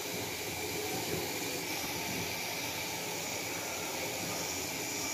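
A steady, even hiss with no distinct knocks or stirring sounds standing out.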